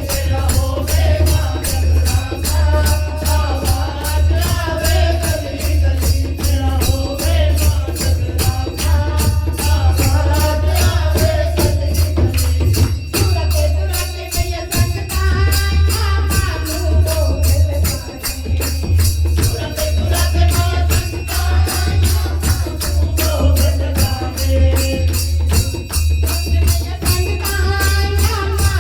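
Devotional Hindu kirtan music: a sung jagrata bhajan with a voice line over a steady, fast jingling hand-percussion beat and a heavy low-pitched pulse.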